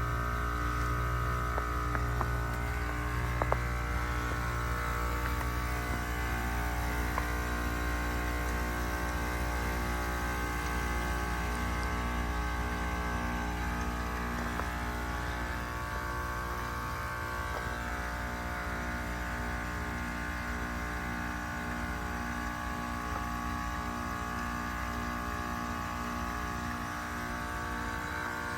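Outdoor unit of a 2025 Carrier Comfort A2L heat pump running: a steady compressor hum made of many fixed tones over a low rumble, with the rumble easing a little about halfway through.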